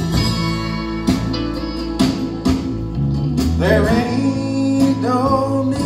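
Live country band playing an instrumental passage between verses: strummed acoustic guitar, electric guitar and bass guitar over a steady beat. A wavering melody line with vibrato comes in about three and a half seconds in.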